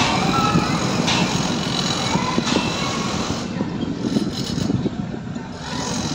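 Steady rumble of passing vehicles, with a few sharp knocks, easing off briefly about four seconds in.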